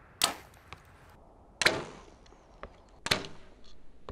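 Compound bow shots, three in a row about a second and a half apart: each a sharp crack of the released string with a short fading tail.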